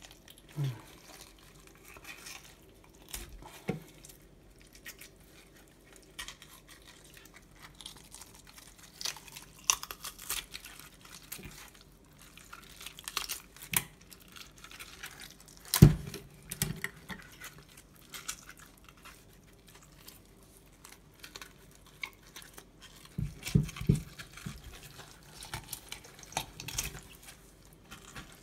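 A knife and gloved hands cleaning a morwong's gills and innards in a stainless steel sink: scattered clinks and knocks of blade and fish against the metal with wet squishing, the loudest knock about sixteen seconds in.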